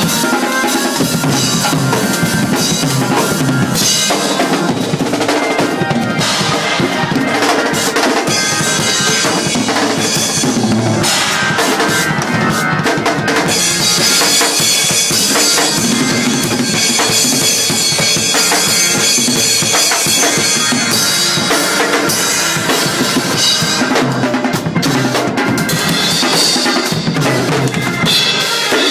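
Acoustic drum kit played loud and fast in gospel shed style: dense snare, tom and bass drum fills under crashing cymbals, with a heavier cymbal wash through the middle stretch.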